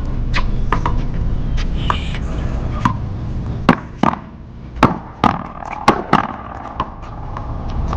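One-wall paddleball rally: a string of sharp, irregularly spaced smacks as paddles strike the rubber ball and it hits the wall.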